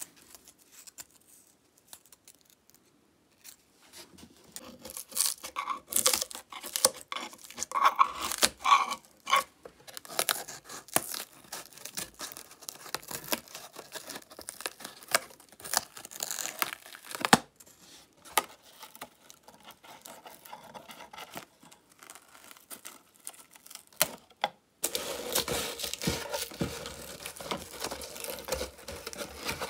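Old glued-on cloth covering being peeled and torn by hand off the wooden body of a vintage suitcase: irregular crackling rips and tugs with short pauses, starting about four seconds in, turning to a denser, steadier tearing near the end.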